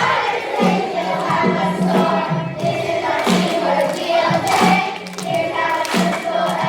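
Children's school chorus singing a song together, over an instrumental accompaniment with a steady repeating bass line.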